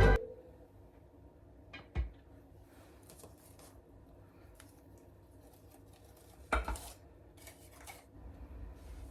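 A few faint knocks and clinks of kitchen utensils against dishes: one pair about two seconds in and a short cluster a couple of seconds before the end, with quiet between.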